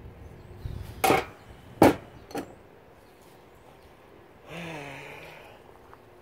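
Two sharp knocks of hard objects being handled, about a second in and just under a second later, the second the loudest, then a lighter knock. A few seconds later comes a brief low hum.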